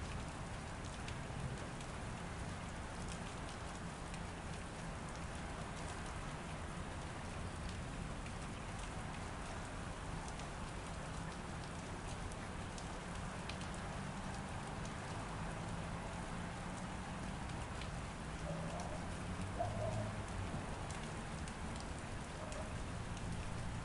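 Steady rain falling behind a window, an even hiss with faint scattered drop ticks over a low rumble.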